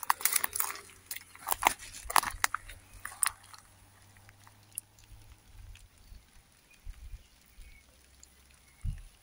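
Footsteps crunching on dry straw and grass, a quick irregular run of crunches for about the first three seconds, then only a few faint ticks and a low thump near the end.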